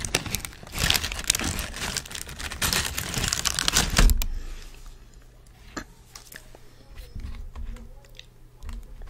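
Garlic naan being torn apart by hand close to the microphone: a dense crackling, crinkling rustle for about four seconds, then only faint small clicks.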